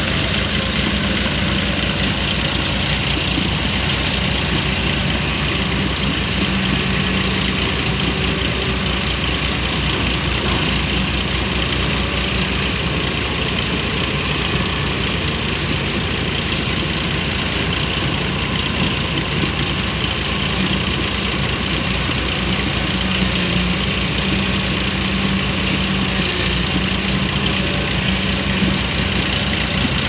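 Diesel engine of a JCB NXT crawler excavator running steadily as the machine digs.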